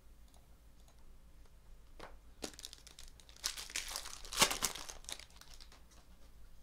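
Foil wrapper of a 2019 Topps Tribute baseball card pack being torn open and crinkled by hand. It comes in short rustling bursts, with a denser run about three and a half to five seconds in, loudest around four and a half seconds.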